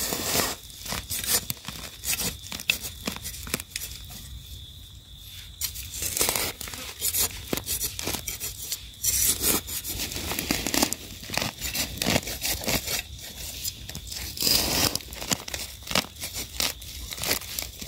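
Dry leaf litter rustling and crackling and soil scraping as termite mushrooms are gripped at the base and pulled up by hand, in irregular crunches and scrapes. A faint steady high tone runs underneath.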